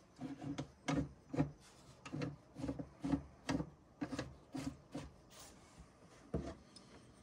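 Roll-chart thumbwheel on a Precision Tube Master Series 10-12 tube tester being turned by hand in repeated strokes, with the paper chart and wheel rubbing and knocking about twice a second.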